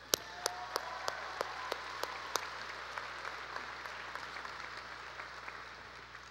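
Audience applauding in a large hall. The applause swells in the first second and dies away near the end. One person claps close to the microphone, about three sharp claps a second for the first two and a half seconds.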